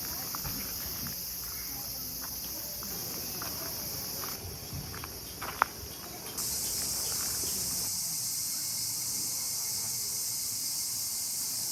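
A steady chorus of insects buzzing high-pitched, growing louder about halfway through, with a single sharp click near the middle.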